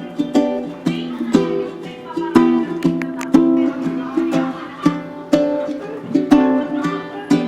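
Background song's instrumental passage: acoustic plucked-string accompaniment, notes picked or strummed at a steady beat, with no vocals.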